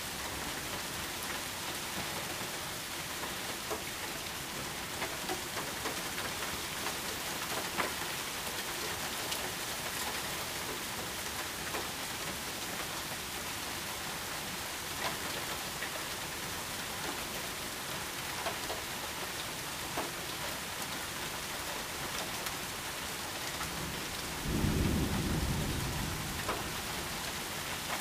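Heavy thunderstorm rain pouring steadily, with scattered sharp ticks. About three seconds before the end, a sudden peal of thunder rumbles low and loud, then fades over a couple of seconds.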